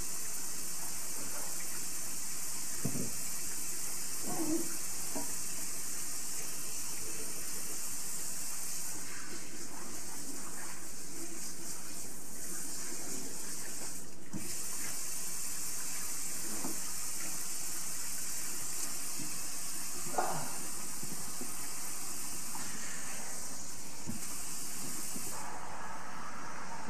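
Kitchen sink faucet running steadily, a continuous hiss of water, with a few faint knocks.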